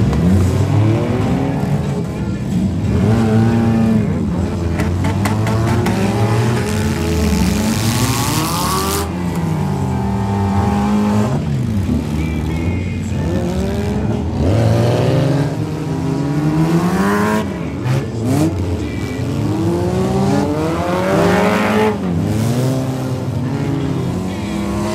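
Engines of many old wrecked race cars revving and passing one after another on a dirt track, their pitches rising and falling and overlapping.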